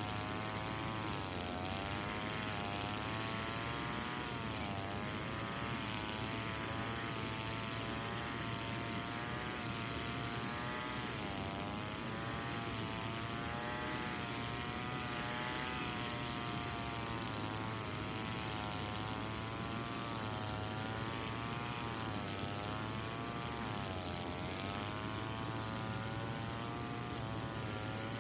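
Brush cutter running continuously while cutting grass, a steady buzz whose pitch wavers up and down throughout.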